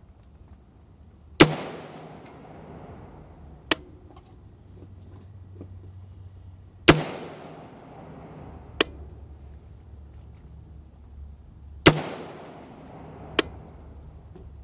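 Three single shots from a BCM AR-15 in 5.56 mm, fired slowly about five seconds apart for a test group. Each report trails off, and a fainter sharp crack follows each one a second or two later.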